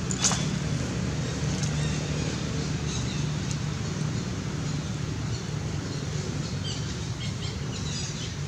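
Steady low motor hum, like an engine running, with scattered faint high chirps and a sharp click just after the start.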